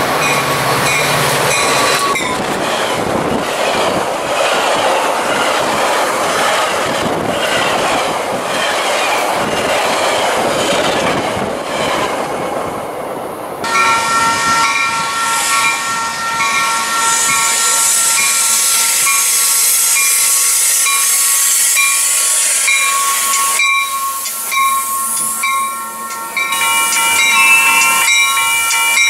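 Metra bi-level commuter train running along the rails with a steady rushing wheel noise. About halfway through, the sound changes abruptly to a train braking into the station: several steady high squealing tones over a hiss as the coaches come to a stop.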